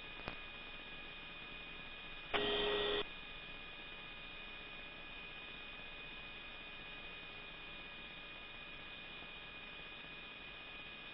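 Steady electrical hum and hiss on an Apache helicopter's cockpit intercom audio, with thin constant whining tones. About two and a half seconds in, a single electronic tone sounds for just over half a second.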